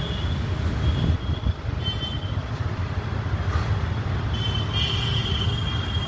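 Outdoor background noise: a steady low rumble, like distant traffic or wind on the microphone, with a thin high tone that comes and goes several times.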